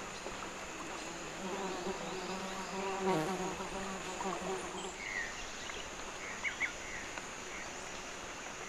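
A flying insect buzzing close by, a wavering drone that stops about five seconds in, over a steady high-pitched insect chorus. A few short chirps come in the second half.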